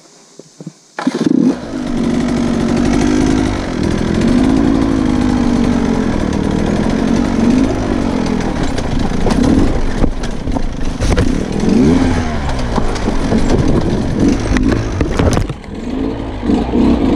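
Sherco 125 enduro motorcycle engine. It comes in suddenly about a second in, then revs up and down as the bike is ridden over rocky trail, with a few sharp knocks.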